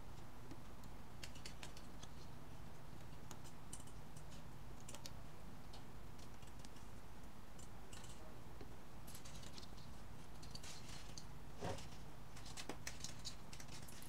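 Faint, scattered clicks and ticks of thin copper wire and the plastic-insulated stator of an LG direct drive washing machine motor being handled as the wire is rewound around the stator teeth by hand. A steady low hum runs underneath, and a slightly louder click comes near the end.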